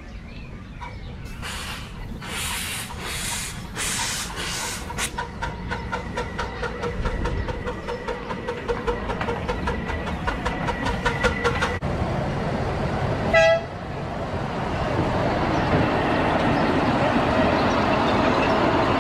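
Miniature ride-on railway locomotive pulling its passenger train past at close range: a few loud hissing bursts, then a fast, even clatter of wheels over the track. It gives one short toot a little over two-thirds through, and a steady rumble of the running train follows.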